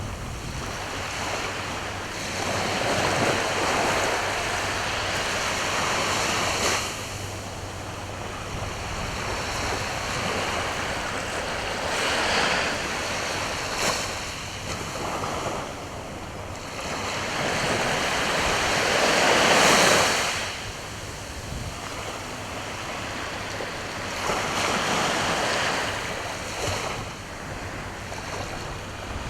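Sea waves washing onto the shore, swelling and fading in surges every several seconds, the loudest about two-thirds of the way through, with some wind on the microphone.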